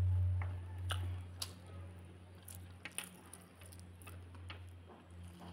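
Close-up chewing of a mouthful of rice and chicken curry, with scattered wet mouth clicks and smacks, over a steady low hum that drops in level after about a second and a half.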